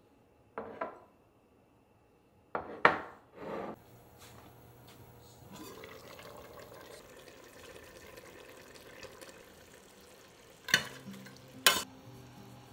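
Kitchenware sounds: a few knocks of small dishes being set down on a table in the first few seconds, then a steady low hiss of cooking in a pot, and two sharp clanks near the end. Soft background music comes in with the clanks.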